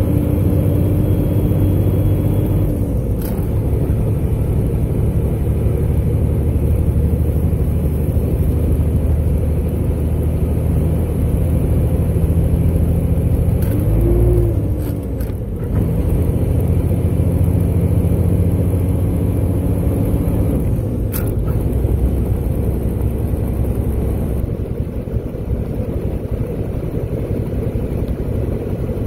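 Dump truck's diesel engine and drivetrain running steadily under way, heard inside the cab. The level drops for a moment about halfway through and then comes back.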